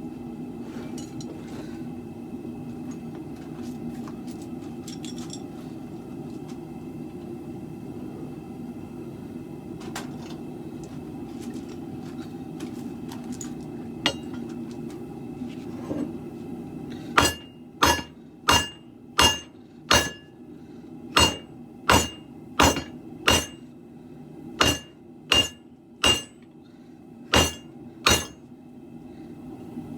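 Hammer blows on a sword blade over an anvil: about fifteen sharp, ringing strikes starting a little past halfway, in short runs of two to five with brief pauses. Before them there is a steady rushing noise with a few faint clicks.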